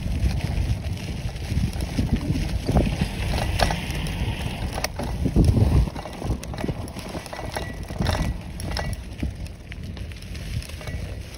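Bicycle riding along a sandy, leaf-strewn dirt trail: tyres crunching over leaves and sand, with scattered knocks and rattles as the bike goes over bumps, over a low uneven rumble.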